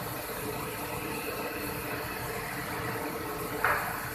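Biesse CNC router's axes travelling under their own drive during the machine's automatic calibration run: a steady mechanical hum with a faint even whine. A short hiss comes about three and a half seconds in.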